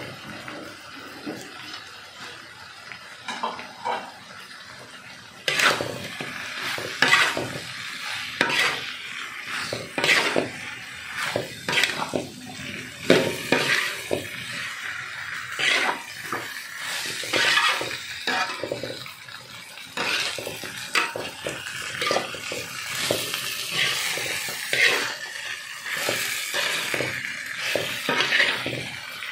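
Metal spatula scraping and knocking against a metal wok, stir-frying bitter melon in chili spice paste, over the sizzle of frying. The first few seconds are quieter with only a few light knocks. From about five seconds in the stirring turns busy and irregular, several scrapes a second.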